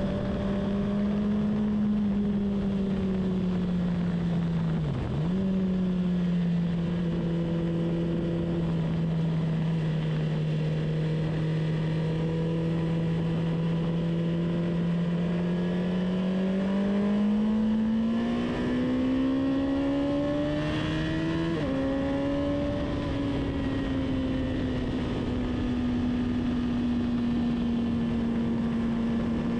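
Car engine heard onboard during track-day laps, running under load over steady wind and road noise. Its pitch holds, dips briefly about five seconds in, then climbs for around five seconds until an upshift drops it sharply, and holds again.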